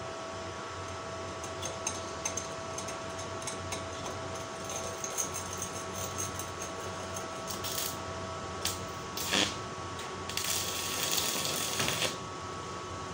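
Stick-welding arc on thin steel strip: a couple of short crackling arc strikes, then a tack weld crackling and hissing for about two seconds near the end. A steady electrical hum runs underneath.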